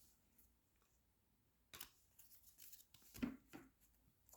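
Near silence, broken by a few faint, short rustles and scrapes of trading cards and a card pack being handled.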